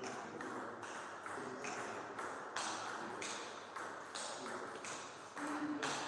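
Table tennis ball clicking: a handful of sharp, light taps spaced irregularly, a second or so apart.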